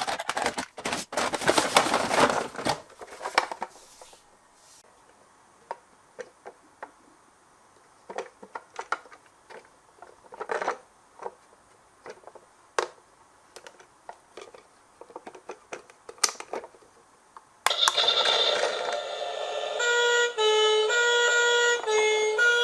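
Die-cast toy cars clattering and rattling along a plastic hill track, then a run of scattered small clicks. Near the end a sequence of electronic tones begins abruptly, stepping up and down in pitch.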